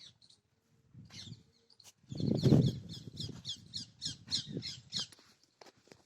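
A bird chirping a fast run of short, repeated high notes, about four a second, over low rumbling noise that is loudest about two and a half seconds in.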